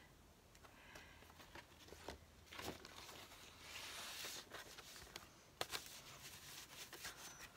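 Faint rustling of a paper record sleeve being handled, with a few soft taps.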